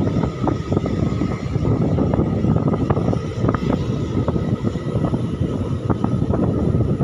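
Motorcycle being ridden along a street: steady engine and road noise with a heavy low rumble and a few small knocks.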